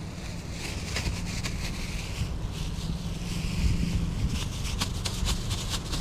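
Wind buffeting the microphone with a steady low rumble, and a thin plastic bag crinkling on and off as it is handled, most about a second in and again near the end.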